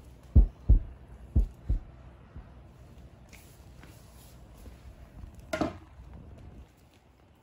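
Heartbeat sound effect: deep lub-dub thumps in pairs about a second apart, dying away after about two seconds. About five and a half seconds in there is one brief, louder noise.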